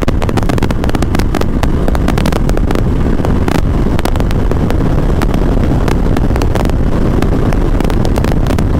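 Wind buffeting the microphone over the engine and road noise of a motorcycle being ridden at road speed.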